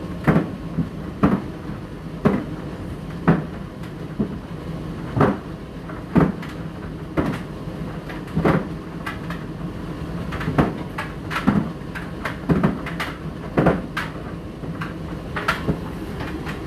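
Indesit IDC8T3 condenser tumble dryer running, with the load thudding against the drum about once a second over the steady hum of the motor and fan.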